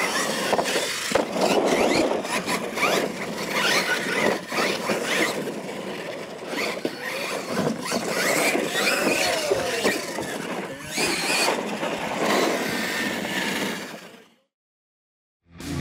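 Two Losi LMT electric RC monster trucks racing on dirt: their brushless motors and drivetrains whine, rising and falling in pitch, over tyres scrabbling on dirt. The sound fades out near the end.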